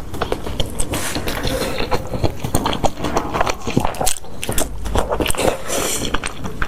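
Close-miked eating sounds: a person biting and chewing oden, with a dense run of wet mouth clicks and smacks.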